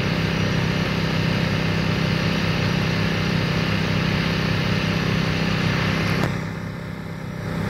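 An engine running steadily with a hiss over it. About six seconds in, the hiss cuts out for a second or so while the engine keeps running, then comes back.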